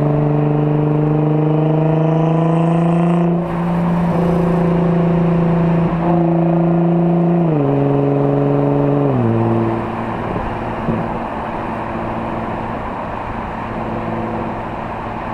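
A Nissan GT-R's twin-turbo V6 with an AAM aftermarket exhaust accelerates, its pitch rising, then breaks for a gear change about three and a half seconds in with a brief hiss. It pulls again, drops in pitch in two steps around eight and nine seconds in, and then runs steadily at a lower pitch and level.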